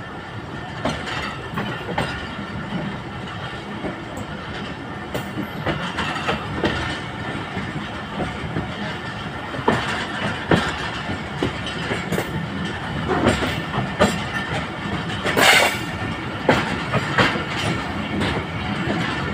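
Passenger express train pulling out of a station, its wheels clicking over the rail joints more often and more loudly as it gathers speed, over a steady rolling rumble. There is one sharp metallic clank about fifteen seconds in.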